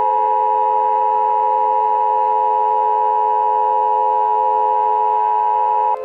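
Emergency Alert System attention signal: a loud, steady two-tone electronic tone with a lower steady tone beneath it, cutting off abruptly near the end.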